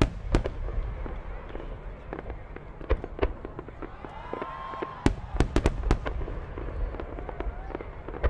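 Fireworks going off: a string of sharp bangs, with a quick cluster of them about five to six seconds in.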